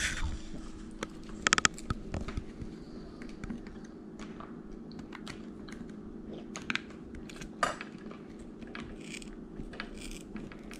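Small screwdriver working the screws of a Penn spinning reel: light scattered ticks and scrapes of metal on the reel body, with a quick run of sharp clicks about a second and a half in.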